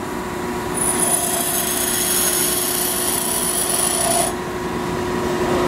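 Pedestal grinder running with a steady hum while a high-speed steel tool bit is held against the grinding wheel: a harsh, hissing grind starts about a second in and stops after about three and a half seconds. It is a light finishing pass on the bit's top face.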